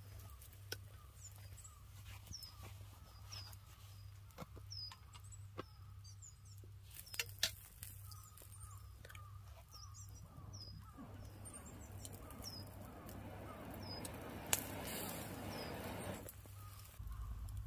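Small birds chirping, short falling calls repeated many times. Over them come a few sharp clicks, and a hiss swells for about five seconds in the second half.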